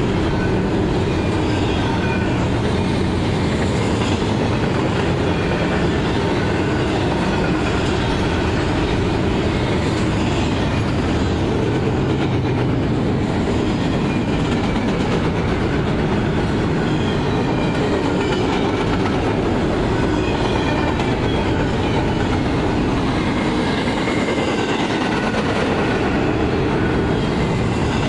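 Double-stack container well cars of a freight train rolling past: a steady, loud rumble of steel wheels on the rails.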